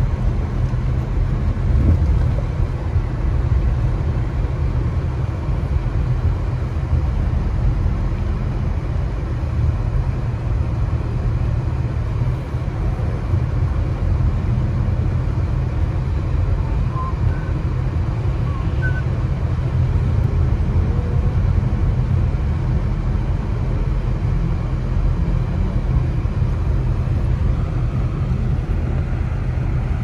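A car driving, heard from inside the cabin: a steady low rumble of engine and road noise.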